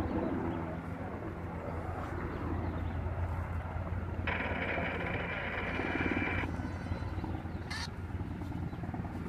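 Helicopter engine and rotor noise, a steady low drone. From about four seconds in, a raspy, higher buzzing tone joins it for roughly two seconds, starting and stopping abruptly, and a single sharp click comes near the end.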